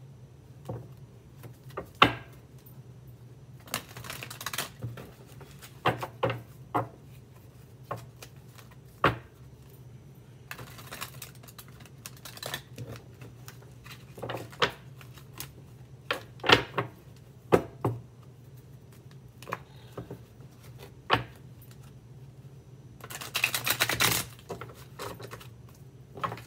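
Tarot cards being handled on a table: irregular sharp clicks and taps as cards are handled and laid down. Three times there is a short dense rattle as the deck is shuffled, the longest near the end.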